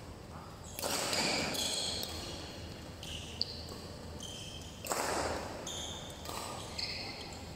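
Court shoes squeaking and scuffing on a badminton court floor in a hall with reverberation, in two bursts of short high squeaks, with one sharp tap about three and a half seconds in.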